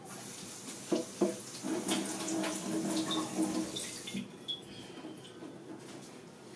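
Water running from a tap for about four seconds, then shut off abruptly, with two sharp knocks about a second in.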